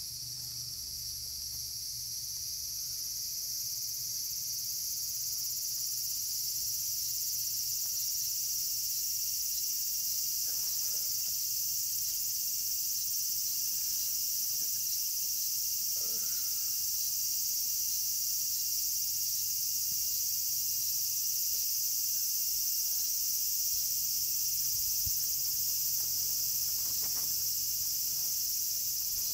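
A steady, high-pitched insect chorus, a dense shrill buzz that grows a little louder over the first few seconds and then holds.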